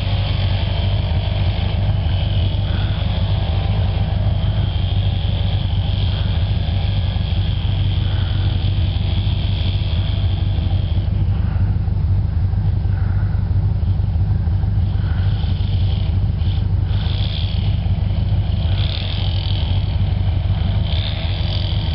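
Willys Jeep engine running steadily under way on a snow-covered road, a constant low rumble with no let-up.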